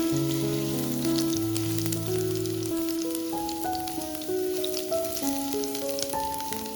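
Background music with a melody and bass notes, over food sizzling and crackling in a frying pan.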